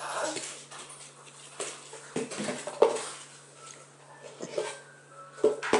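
Babies playing with plastic toys: scattered knocks and clatter of plastic, with a few short baby vocal sounds, one about two seconds in and one near the end.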